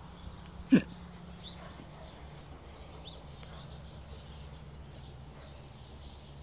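A single short bark from a dog about a second in, the loudest sound by far, falling in pitch. Faint short bird chirps come now and then behind it.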